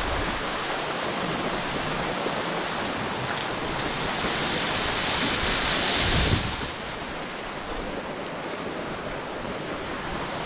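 Steady rushing hiss of a small waterfall pouring down a rock face close by. It swells louder and hissier for a couple of seconds around the middle, then settles back.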